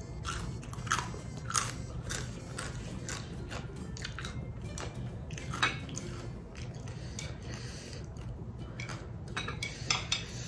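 Close-miked eating sounds: a person chewing food, with irregular short smacks and crunchy clicks from the mouth.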